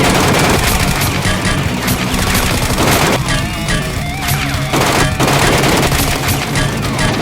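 Background music with a steady low beat, over rapid bursts of gunfire sound effects, volley after volley of sharp shots.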